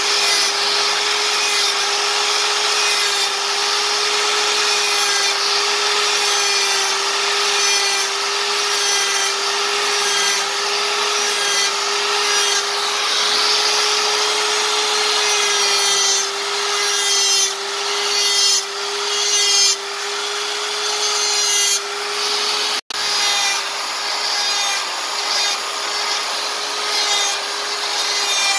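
Electric rotary carving tool running with a steady whine, its burr grinding into hardwood as feather detail is cut. The grinding swells and dips as the bit bites. The sound cuts out for an instant about three-quarters of the way through.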